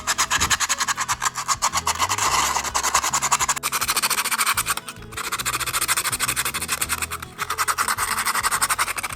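Quick back-and-forth rasping strokes, like filing or sanding by hand, in three bouts with short pauses about four and a half and seven seconds in, over background music.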